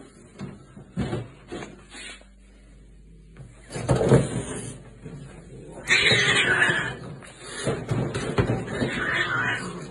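A cat fighting inside a plastic pet carrier as a gloved hand reaches in to pull it out: cat vocalising, with scuffling and knocks against the carrier. A few knocks at first, then it gets louder and busier from about four seconds in, loudest from about six seconds.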